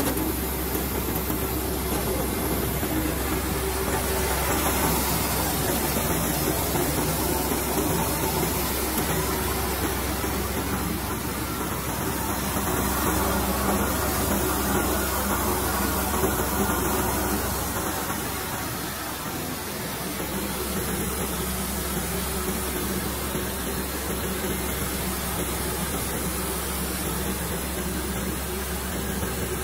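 Single-phase combined rice mill (huller and whitener) running steadily, a low motor hum under an even rushing hiss of grain and air moving through the machine as paddy is hulled and the rice whitened. The low hum dips briefly a little past halfway.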